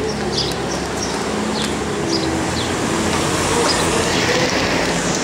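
Steady road and engine noise of a moving vehicle, heard from on board, with a few short high chirps over it.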